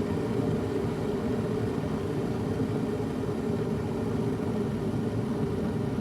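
Electric kettle heating water near the boil: a steady, low rumble of the water as it starts to boil.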